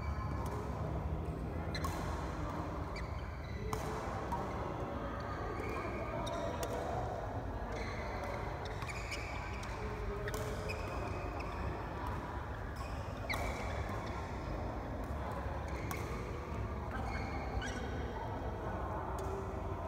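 Badminton play in a large hall: sharp cracks of rackets hitting a shuttlecock at irregular intervals, with brief squeaks, over a steady low hum from the hall.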